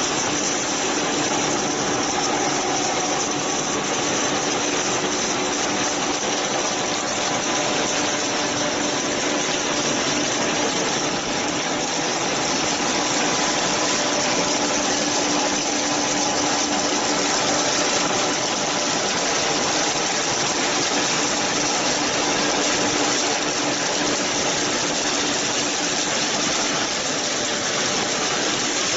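Animal feed production line machinery running steadily: an even, loud mechanical noise with a few steady hums in it.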